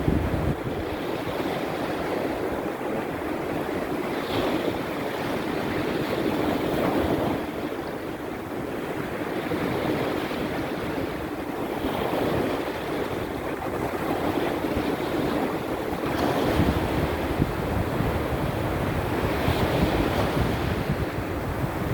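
Baltic Sea surf in a small storm: waves breaking and washing ashore, swelling every few seconds, with wind rumbling on the microphone.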